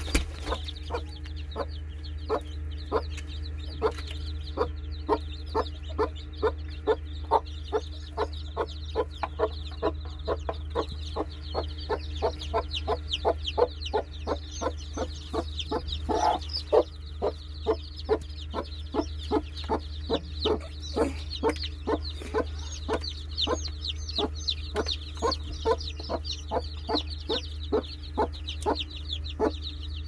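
Broody mother hen clucking steadily, about two to three clucks a second, while her newly hatched chicks peep high above, their peeping busier from about halfway on.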